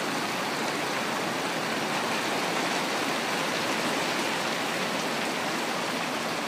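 Heavy rain pouring down, heard from under an open-sided shelter roof: a steady, even hiss with no let-up.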